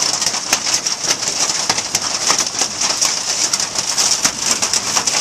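Hailstorm: a dense, steady hiss of hail and rain coming down, with many sharp clicks of hailstones striking surfaces.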